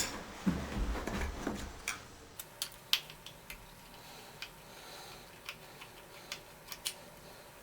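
A small Phillips screwdriver working a screw out of a shower valve cartridge's handle piece, with small metal and plastic parts being handled: some rustling and a low knock in the first second or so, then a run of sharp, irregular ticks.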